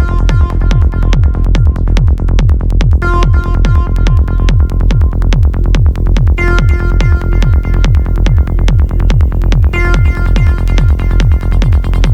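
Electronic dance music with a steady four-on-the-floor kick drum and synth chords.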